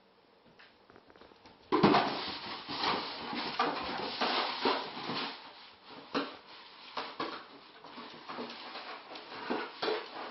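Labrador puppy attacking a cardboard box: after a quiet start, a sudden loud knock about two seconds in, then an irregular run of cardboard knocks and rustles as the box is pounced on and pushed around.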